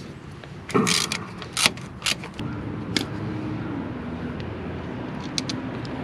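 A few sharp metal clinks and scrapes as the pin bolt comes off and the steel hydraulic cylinder is moved on the backhoe frame, mostly in the first three seconds, over a steady low hum.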